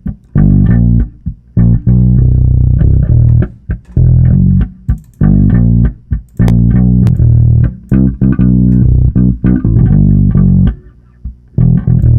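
Electric bass guitar recorded through a miked bass cabinet, playing a line of loud notes separated by short breaks, with a longer break near the end.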